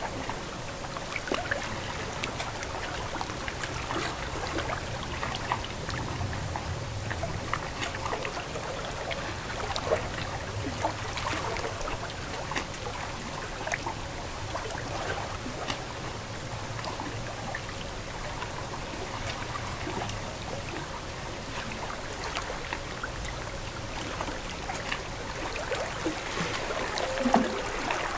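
Lake water lapping and trickling at the water's edge, a steady wash full of small splashes and drips, with one louder splash near the end.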